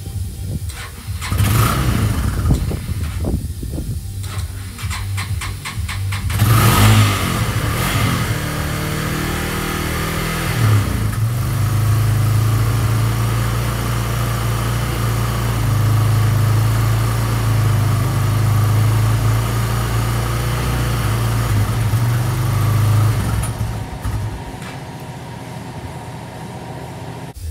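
Yamaha Bear Tracker 250 quad's single-cylinder four-stroke engine running just after a carburettor rebuild. It catches and runs unevenly with rising and falling revs for the first several seconds, then runs steadily for about twelve seconds before it drops away near the end.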